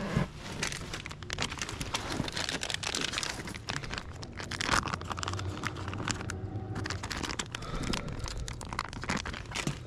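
Close-up crinkling and rustling handling noise with many irregular clicks.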